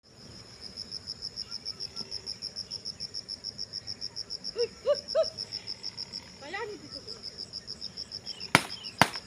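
Insect chirping steadily as a high, evenly pulsed trill of about six or seven pulses a second. About halfway through come three short pitched calls, and near the end two sharp, loud knocks, the loudest sounds.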